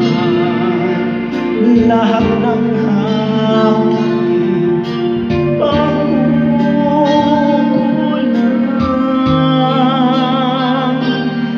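Videoke singing: a person sings through a microphone over a karaoke backing track, holding long notes with vibrato toward the end.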